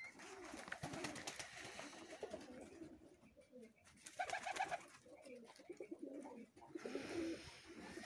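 Domestic fancy pigeons cooing, soft low coos from several birds overlapping faintly.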